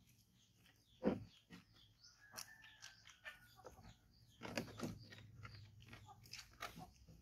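Hands rubbing soap into a baby monkey's wet fur: scattered soft squelching and rubbing noises, the loudest about a second in and again around four and a half seconds in.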